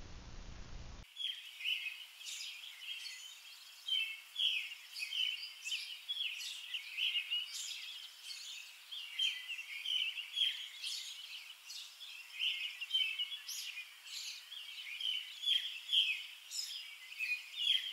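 Outdoor birdsong: several birds chirping and singing in short, repeated phrases that start about a second in.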